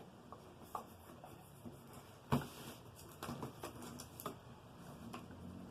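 Rustling and light taps of paperwork and packaging being handled, with one sharper knock about two seconds in.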